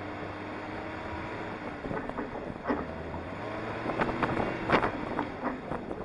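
Suzuki Jimny's engine running steadily while driving over desert sand, with wind rushing over the microphone on its hood. From about two seconds in, irregular knocks and thumps come more and more often.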